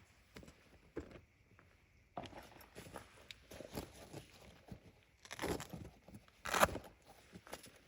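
Rustling and handling noises: scattered light clicks and crinkles, with two louder rustles about five and a half and six and a half seconds in.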